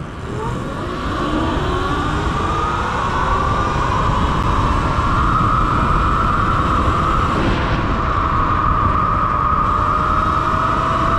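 Sur-Ron electric dirt bike's motor whine rising in pitch as the bike accelerates over the first two seconds, then holding a steady high whine at speed, over a low wind rumble on the microphone.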